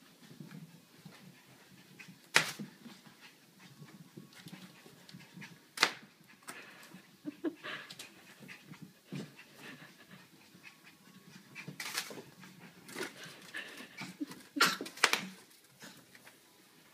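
Papillon puppy panting, with scattered sharp knocks and bumps, the loudest about two and a half seconds in, about six seconds in, at twelve seconds, and in a cluster near the end.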